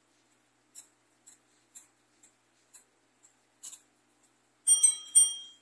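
Antique French Comtoise (Morbier) longcase clock ticking about twice a second. Near the end its striking train sounds two loud bell strokes about half a second apart, left ringing. This is the quarter strike set off by turning the minute hand to quarter past.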